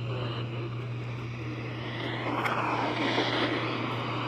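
Engine noise over a steady low hum, with a wash of motor sound that swells a little past the middle.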